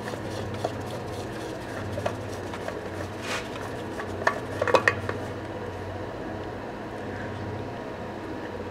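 A handful of light metallic clinks and taps, scattered through the first five seconds, as the oil filter is worked loose from the underside of a 2004 Polaris Ranger 6x6 engine, over a steady low hum.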